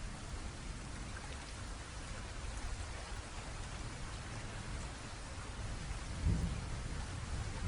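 Steady rain falling, with a low rumble of thunder swelling up about six seconds in.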